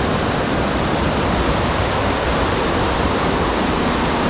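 Steady rushing water of a fast-flowing mountain stream.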